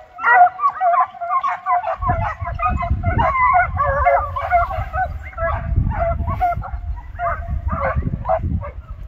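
A pack of hunting hounds baying in chorus, many overlapping calls at once, as they give tongue on a hare's trail. From about two seconds in, a low uneven rumble runs underneath.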